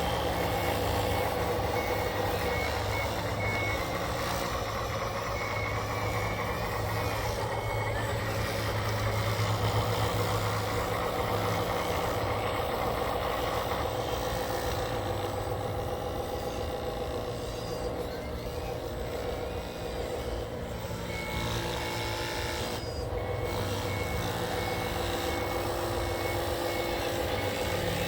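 Radio-controlled construction machine running: a steady motor and gear whine with an engine-like drone, and a reversing beeper sounding in repeated beeps for stretches.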